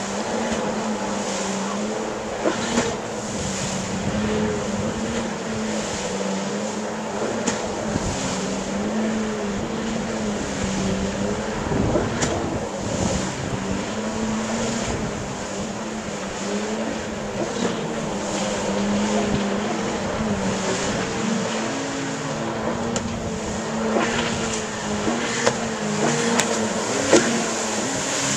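Jet ski engines running on the water, their pitch wavering up and down as the throttle changes, with a few short sharp knocks along the way.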